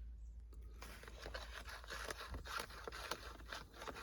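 Faint rustling and scraping with scattered small clicks and taps, the sound of things being handled close by.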